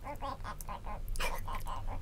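A person's voice in two quick runs of short repeated syllables, about five or six a second, with a brief gap between them.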